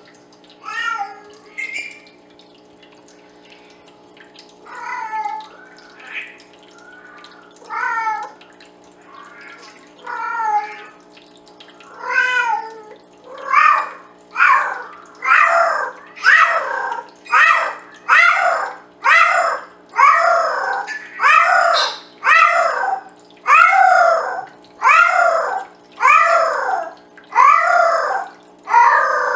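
Female Bengal cat meowing loudly again and again. The calls are scattered at first, then after about twelve seconds become a steady run of long calls about one a second, each falling in pitch. A steady low hum lies underneath.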